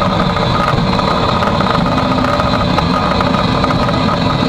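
Steady, loud running noise in the cab of the A1 Pacific steam locomotive 60163 Tornado, an even rushing mechanical din with a faint steady whine running through it.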